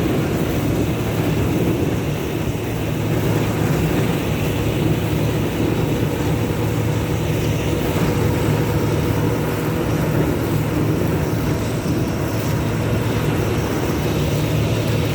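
Combine harvester working wheat: its engine and threshing machinery running in a steady, continuous low drone with a faint steady hum above it.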